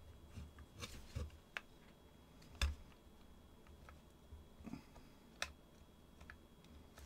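Faint, scattered small clicks and taps of small brass fittings being handled, screwed in and tried by hand, the sharpest a little over two and a half seconds in.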